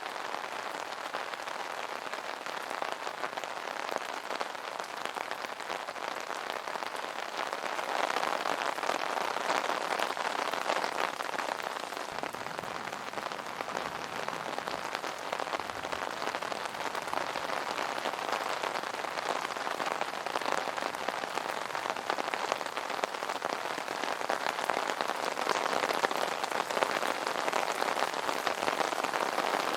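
Steady rain pattering on an umbrella canopy, a dense hiss of drops with fine individual ticks. It swells slightly a few times.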